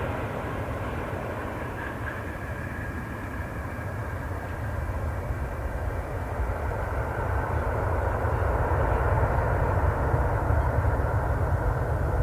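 Jet airliner engines on approach to land, a steady rumble that builds over several seconds as the aircraft comes closer.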